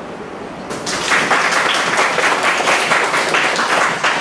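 Audience applauding, breaking out about a second in.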